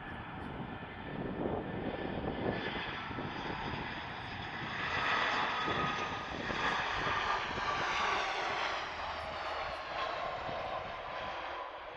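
Airbus A320 jet engines as the airliner comes in to land and passes by, the whine and rush growing louder to a peak about halfway through, then fading away.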